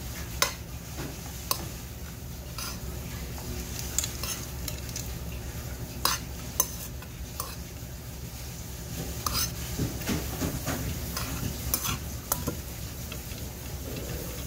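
A metal spoon mixing barley bibimbap in a stainless steel bowl: the rice and vegetables being turned over, with irregular clinks and scrapes of the spoon against the bowl.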